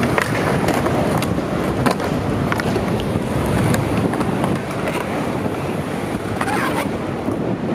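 Skateboard wheels rolling on concrete, a steady rumble, with several sharp clacks from the boards scattered through it.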